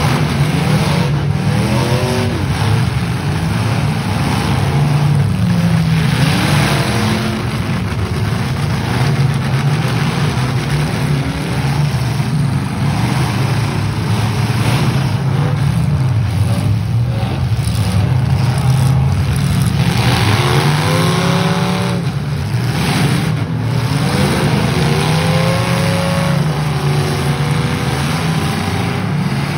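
Demolition-derby cars' engines running and revving hard, several at once, their pitch rising and falling again and again.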